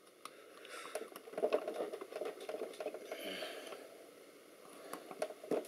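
Faint handling noise of a metal assembly being wiggled and pulled loose by hand: light scraping and rustling with scattered small clicks, a few sharper clicks near the end.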